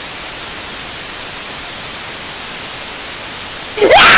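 Steady TV static hiss from a television that has lost its signal after the satellite is destroyed. Near the end a much louder voice cuts in with a rising yell.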